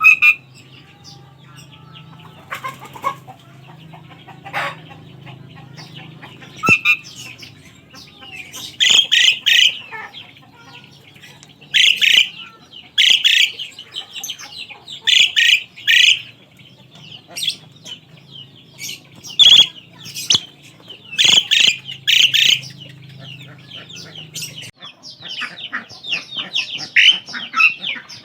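Asian pied myna (jalak suren) giving loud, harsh calls in short clusters every second or two, breaking into quicker chatter near the end, over a faint low hum.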